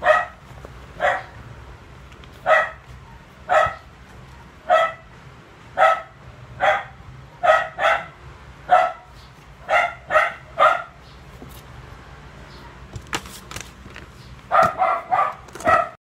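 A dog barking repeatedly, roughly one bark a second, then after a short pause a quick run of barks near the end.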